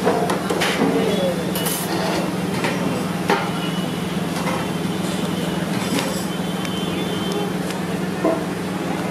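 Busy restaurant kitchen ambience: a steady low hum under occasional sharp clinks and knocks of plates and serving utensils, with background voices.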